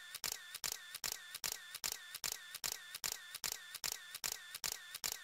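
Camera shutter clicking over and over in an even rhythm, about two and a half clicks a second, each a sharp snap with a short tail.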